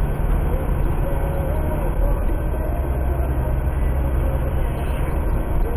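Steady low rumble of a car's engine and tyres heard from inside the cabin while driving on a highway.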